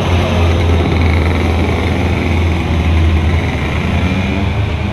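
Two-stroke racing kart engine idling steadily while the kart stands still.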